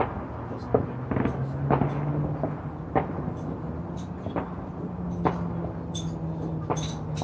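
Distant fireworks going off in a quick, irregular series of sharp pops and bangs, about two a second, over a steady low hum.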